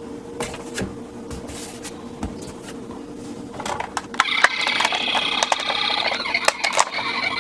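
Small plastic toy cars clicking and rubbing as they are handled and rolled. About halfway in, a high-pitched electronic toy ambulance siren comes on, with clattering clicks continuing over it.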